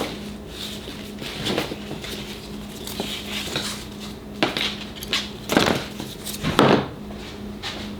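Irregular clinks and knocks of a tie-down strap and its metal buckle being handled and fed around a table saw on its stand, a few louder knocks in the second half.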